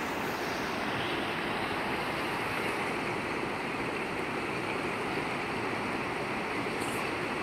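Mountain river rapids rushing over boulders: a steady, unbroken noise of fast-flowing white water.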